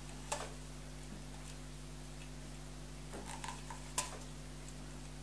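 Scissor blades clicking and snipping at the insulation of a thin red power-supply wire as it is stripped by hand: a sharp click soon after the start, a few small clicks about three seconds in, and another sharp click about a second later, over a steady low hum.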